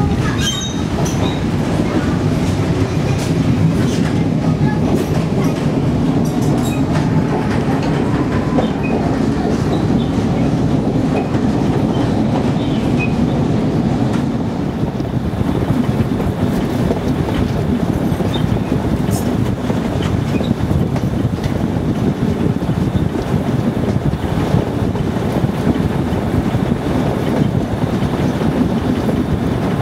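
A moving train heard from the carriage coupled right behind a diesel locomotive: a steady rumble of the locomotive and the wheels on the rails, with scattered light clicks and rattles.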